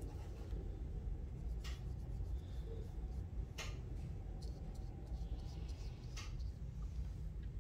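Steady low room hum with the faint scratch of a small paintbrush, first swirling on a tempera paint cake, then stroking paint onto paper. Three light clicks are spaced about two seconds apart.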